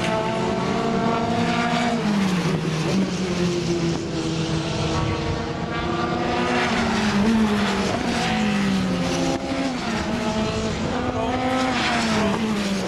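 Formula 3 race car engines running on the circuit, their pitch falling and rising in several sweeps as the cars brake, shift and accelerate.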